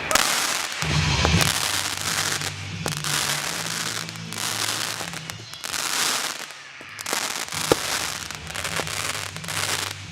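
Fireworks crackling in long rolls, with a few sharp pops, over background music.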